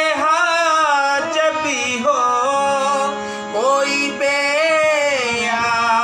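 A man singing an Urdu devotional qalam, drawing out two long, wavering melismatic phrases, with a steady low tone held underneath.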